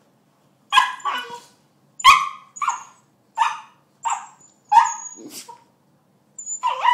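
Puppy barking: a string of short, high barks, about one a second, with a brief pause before a last cluster near the end.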